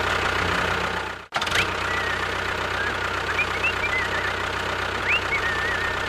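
Tractor engine running with a steady knocking chug. It breaks off sharply about a second in and starts again at once.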